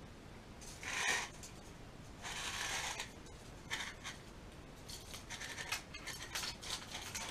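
Retractable metal tape measure being handled and pulled out against the wall: a rubbing scrape, then a run of small clicks and ticks in the second half.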